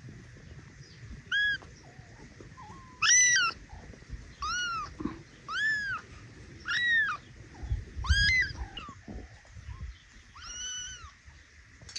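Small tortoiseshell kitten mewing repeatedly: about seven high-pitched meows, each rising then falling in pitch, a second or two apart.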